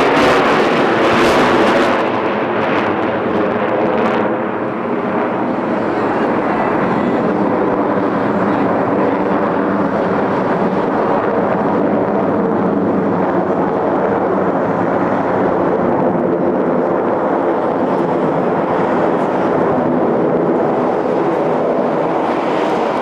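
Jet engines of a formation of Blue Angels F/A-18s flying overhead: a loud, steady roar. Its high hiss is strong for the first couple of seconds, then fades after about four seconds, leaving a lower, steadier roar as the jets move away.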